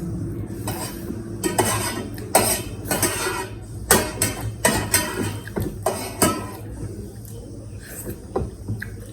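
Spoons scraping and clinking against plates during a meal, in many short irregular knocks and scrapes.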